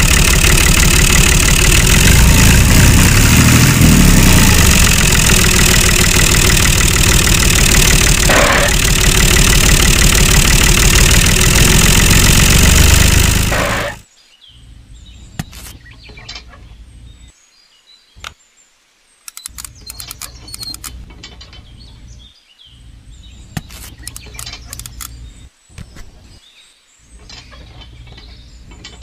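A loud, steady tractor-engine sound over music cuts off abruptly about halfway through. After that come quiet, scattered clicks and small taps as hands fit a toy disc plough to a model tractor's three-point hitch.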